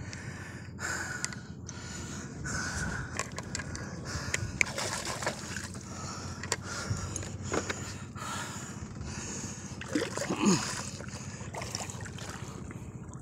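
Water splashing and sloshing as a large stingray is pulled up at the surface beside a small wooden outrigger boat, with scattered knocks. A few short vocal sounds from the man hauling are mixed in, the loudest about ten seconds in.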